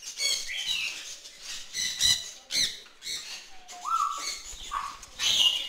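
Captive parrots calling: a string of short squawks and whistled calls that rise and fall in pitch, including a clear rising whistle about four seconds in.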